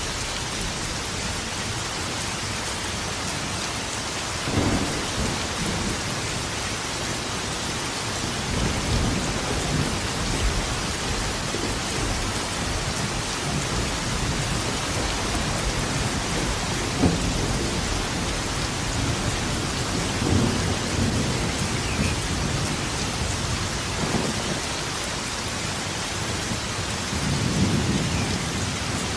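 Steady rain falling with a constant hiss, with rolls of thunder rumbling low several times, the longest near the end.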